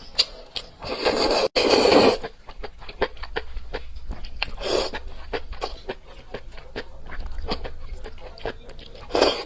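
Close-miked eating sounds: wet chewing with many small mouth clicks, and louder noisy bursts, a long one about a second in and shorter ones halfway through and near the end.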